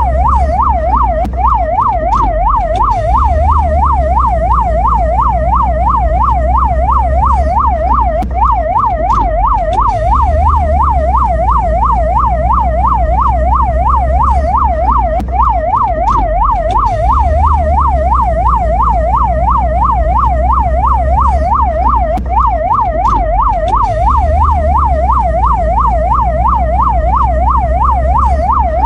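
Ambulance siren sounding a fast yelp, a loud tone sweeping up and down several times a second without pause, over a steady low rumble.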